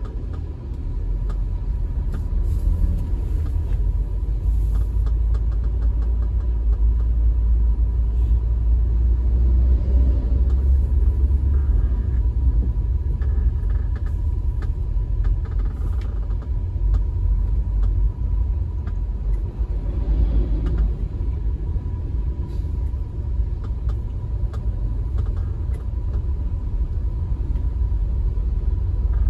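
Steady low rumble of a car's engine and tyres on the road, heard from inside the cabin.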